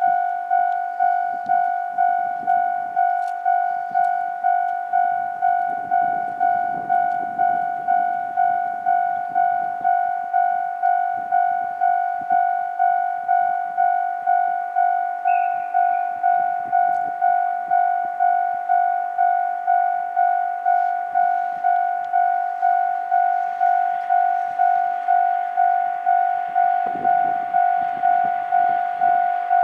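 Japanese level-crossing warning bell ringing in an even, repeating ding, about three strokes every two seconds. Near the end the noise of an approaching train rises beneath it.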